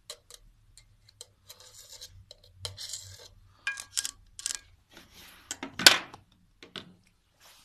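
Handling noise from rubber-gloved hands working a voltage tester pen against a brass pyramid and its glass-set red liquid: scattered scrapes, rubs and light clicks. The loudest knock comes a little before six seconds in.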